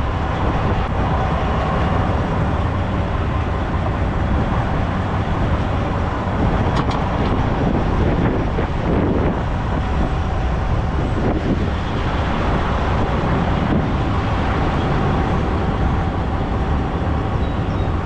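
Western Star semi-truck running: a steady, unbroken engine rumble with road or idle noise.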